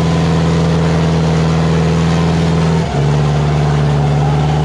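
Sonalika DI-750 III tractor's diesel engine running loud and hard at high revs. About three seconds in it briefly dips, then carries on at a slightly lower pitch.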